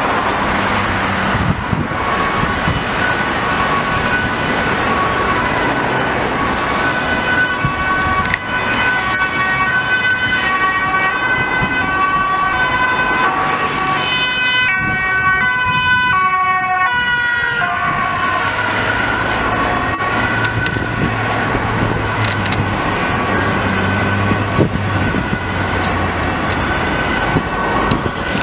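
Ambulance two-tone siren alternating between a high and a low note as the ambulance approaches and passes, its pitch dropping as it goes by about two-thirds of the way through. Road traffic runs underneath.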